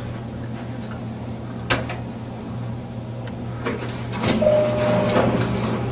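Otis service elevator running with a steady low hum, a sharp click a little under two seconds in, then its doors sliding, with a short steady tone about four and a half seconds in.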